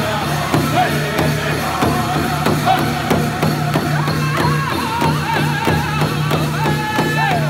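Powwow drum group performing a chicken dance song: several men striking one large hide drum together in a fast, even beat while singing in high voices. Near the end a long held note slides down.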